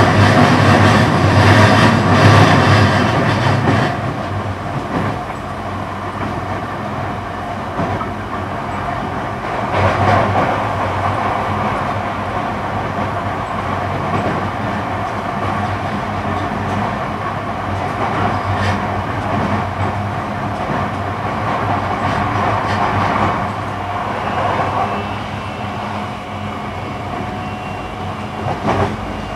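Running noise of an E235-series electric train heard from inside the car at cruising speed: a steady rumble of wheels on the rails. It is louder for the first four seconds and swells briefly again about ten seconds in.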